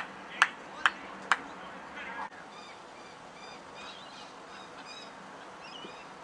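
Four sharp handclaps about half a second apart, then after an abrupt cut, birds chirping faintly over quiet outdoor background.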